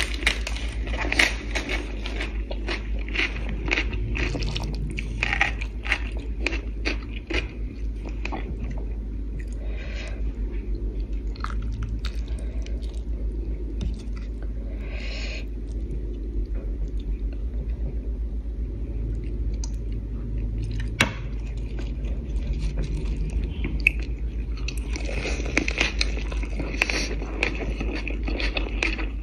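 Close-up mouth sounds of a person eating soft steamed fish and rice noodles: wet chewing and smacking clicks, dense for the first several seconds, sparse in the middle and busy again near the end. A steady low hum runs underneath.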